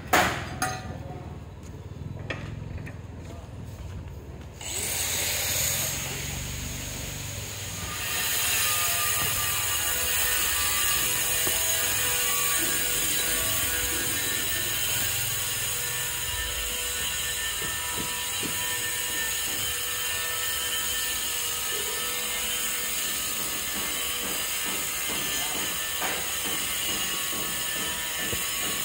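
A few light taps, then a steady machine whir with a high hiss that grows louder about eight seconds in and holds steady.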